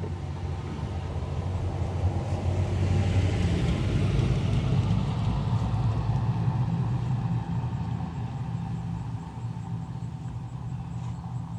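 A motor vehicle going by, its sound swelling over a few seconds and then fading, over a steady low engine-like hum.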